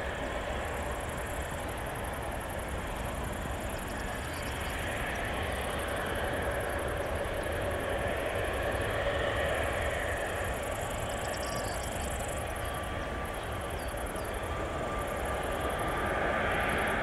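Airbus A321neo's jet engines at takeoff power, heard from across the airfield as a steady rumble that grows gradually louder as the airliner accelerates down the runway. A faint steady whine joins in during the second half.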